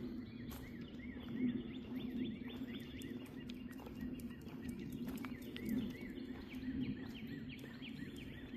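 A small songbird chirping over and over in quick runs of short rising-and-falling notes. A steady low hum and scattered light clicks lie underneath.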